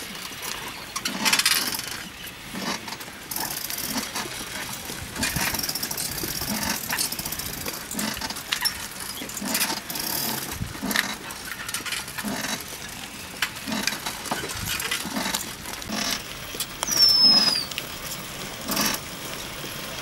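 Cycle rickshaw rolling along a road: irregular rattles, knocks and creaks from the frame and pedalling. Near the end a single falling whistled bird call sounds over it.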